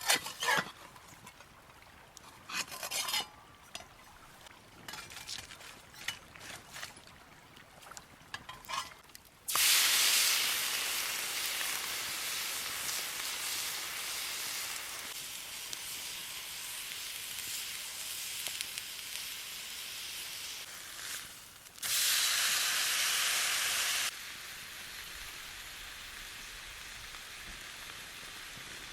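A few light knocks and clicks of handling, then about nine and a half seconds in a tomahawk steak goes into hot butter in a pan with a sudden loud sizzle that carries on steadily. About 22 seconds in the sizzle flares louder for about two seconds, then settles back to a steady frying hiss.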